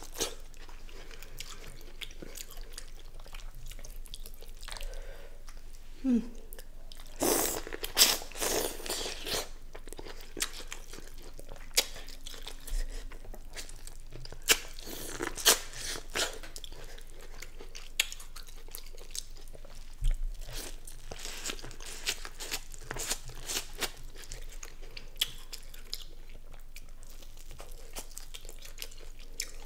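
Close-miked eating: a person chewing and biting into sauce-coated seafood boil, with irregular crunches. The bites are loudest about six to nine seconds in and again around twenty seconds in.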